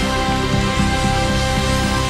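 Instrumental passage of a gospel choir song: held chords over a bass line stepping from note to note, with no singing.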